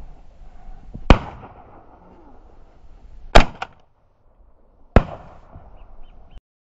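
Three shotgun shots, one about a second in, one near the middle and one about five seconds in, each a sharp crack with a short tail.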